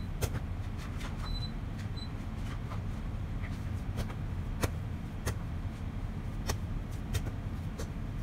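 Hands kneading yeast dough on a floured board: irregular soft taps and knocks as the dough is pressed and turned, over a steady low rumble.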